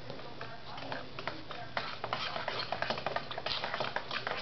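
A spoon stirring, scraping and tapping in a cereal bowl: a run of small clicks and scrapes that gets busier about two seconds in.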